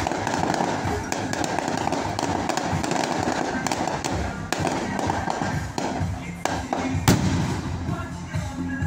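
Aerial fireworks popping and cracking, with one sharper bang about seven seconds in as a shell bursts overhead, heard over loud music and voices.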